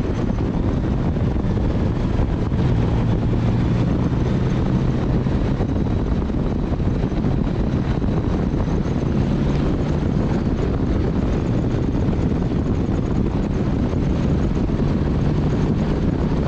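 Motorcycle engine running steadily while riding, its pitch shifting slightly, under heavy wind noise on the microphone.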